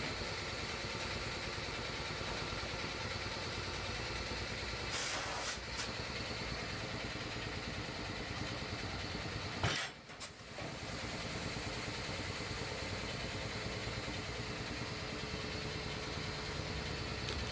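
Steady mechanical running noise of a motor or engine, with a brief hiss about five seconds in and a sharp click near ten seconds.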